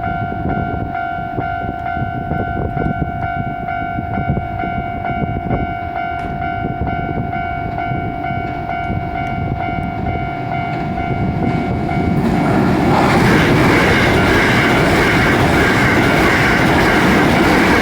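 Japanese railroad crossing warning bell ringing steadily. About twelve seconds in, a Hankyu electric train reaches the crossing and passes through, its running noise loud over the bell until near the end.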